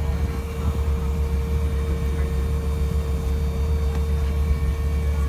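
A vehicle engine idling with a steady low rumble, over which a steady thin whine holds one pitch.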